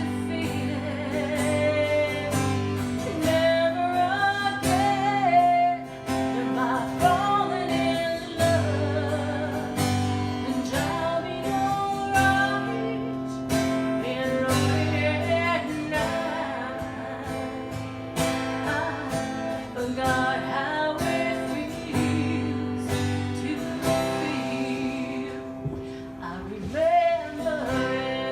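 A song with a woman singing over strummed acoustic guitar, her long held notes wavering.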